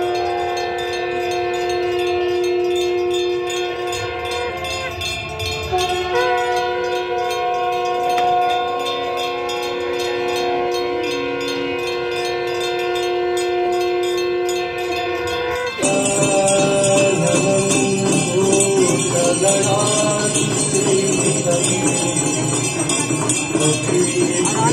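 Several conch shells blown together in long, steady held notes, their pitches shifting a few times. About two-thirds of the way through this cuts off suddenly into ringing hand bells with music.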